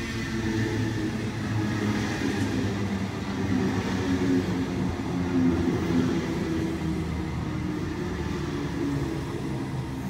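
Sydney Trains Waratah double-deck electric train running into the platform. Its steady rumble of wheels on rails grows louder, peaks about halfway through as the carriages pass close by, then eases slightly.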